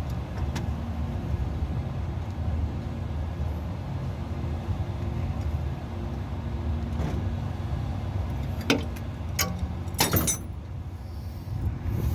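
A steady low engine hum, like an engine idling, runs throughout. About two-thirds of the way through come a few sharp metallic clinks, like tools knocking on metal.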